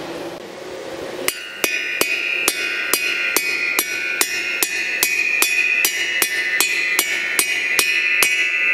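Hammer blows on a metal drift driving a new exhaust valve guide into an air-cooled Porsche 911 aluminium cylinder head. The blows start about a second in and go on steadily at about two to three a second, each with a metallic ring.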